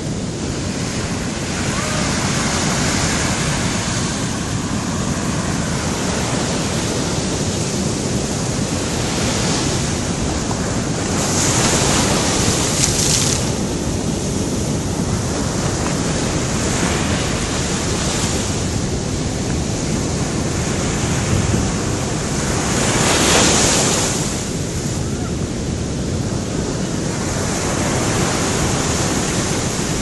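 Ocean surf breaking and washing up a sandy beach, a continuous rush of water with two louder wave crashes, the bigger one about three-quarters of the way through.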